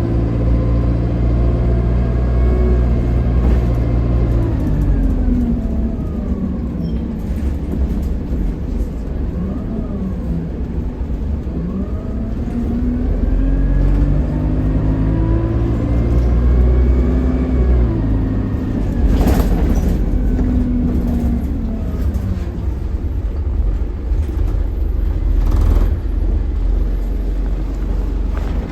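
Alexander Dennis Enviro200 single-decker bus running, its engine note rising and falling several times as it speeds up and slows down, over a steady low rumble. Two sharp clicks or knocks come about two-thirds of the way in and again near the end.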